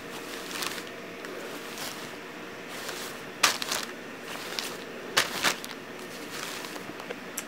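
Rustling of a cloth costume being handled and unfolded, with a few brief louder rustles about three and a half and five seconds in.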